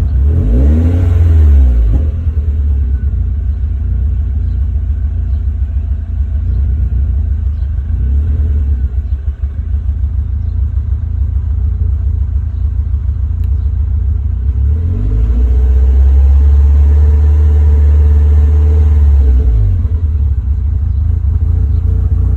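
Car engine idling roughly. It is blipped up and back down about a second in, given a smaller rev in the middle, then held at higher revs for about five seconds before dropping back to idle. This is the rough idle the owner reports once the engine is up to temperature.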